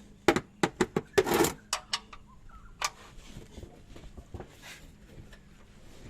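Hand tools on the engine's sump drain bolt: a quick run of sharp metal clicks and knocks with a short scraping rasp in the first two seconds, one more click about three seconds in, then faint handling noise as the bolt is tried.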